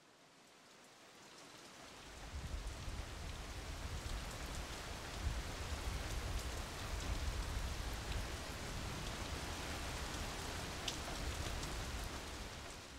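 Steady rain falling on pavement, a fine hiss with a low rumble underneath. It fades in over the first two seconds and fades out at the end.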